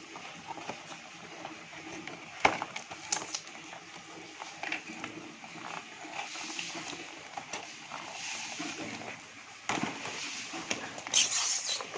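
Toy packaging being handled and opened: cardboard and plastic rustling and crinkling, with scattered clicks and a couple of sharp knocks, and a louder crinkle near the end.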